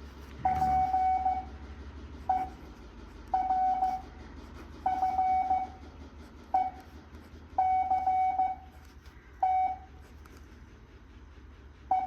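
Morse code practice tones at 7.5 words a minute: a single steady beep keyed on and off in short dits and long dahs, with long pauses between the elements.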